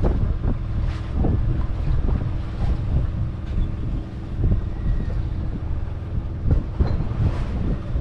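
Steady low rumble and hum of a fishing boat's motor, with wind buffeting the microphone and a few light knocks.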